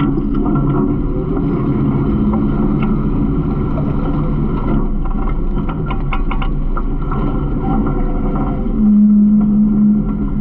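Garbage truck engine running steadily, with scattered clicks and rattles. About nine seconds in, a steady droning tone swells louder for about a second.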